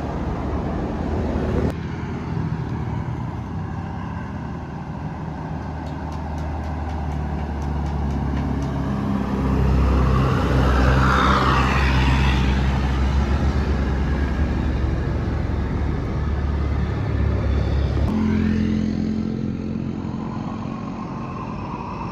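A bus engine running as the bus drives past, growing louder to a peak around the middle and easing off near the end.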